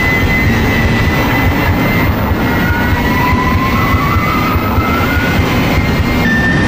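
Electric car driving flat out, its motor whine rising slowly in pitch over loud, steady road and wind noise.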